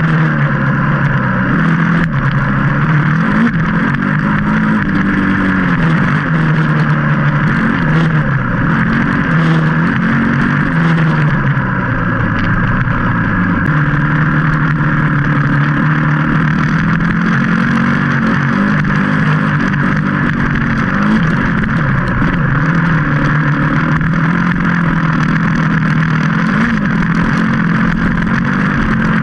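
Trail motorcycle engine running as the bike rides a dirt track, its pitch rising and falling with the throttle and dropping sharply about thirteen seconds in.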